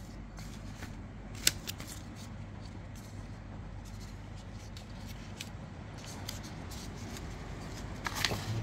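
Plastic packaging and a phone being handled: soft rustling with scattered light clicks, one sharp click about one and a half seconds in.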